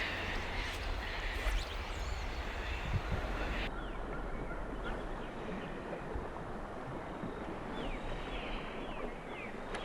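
Steady outdoor noise of wind and moving water with a low wind rumble on the microphone, and short bird chirps now and then.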